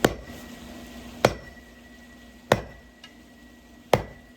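Metal tetherball pole sections banged down on a block of wood four times, about one blow every second and a quarter, to seat one section into the other. A faint metallic ring lingers after each blow.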